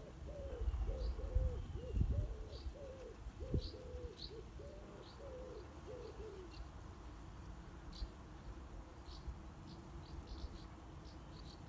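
A pigeon cooing, a run of low repeated coos that ends about six and a half seconds in, over short high chirps from a small bird repeating throughout. Low rumbling bumps on the microphone in the first four seconds.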